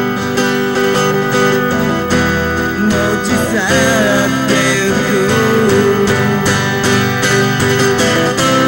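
Acoustic song: a strummed acoustic guitar, with a wavering melody line coming in about three and a half seconds in.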